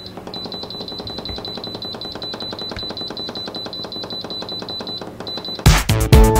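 Instant Pot's control panel beeping in a rapid, almost unbroken string of high beeps as the minus button is held down to count the cooking time back. Loud background music starts abruptly near the end.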